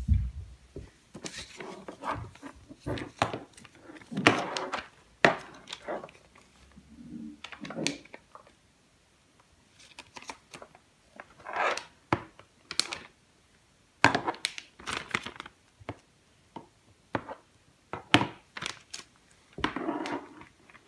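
Irregular knocks and taps of small plastic cups on a tabletop, with a clear plastic bag crinkling as crushed Orbeez gel beads are handled. The heaviest thunk comes right at the start.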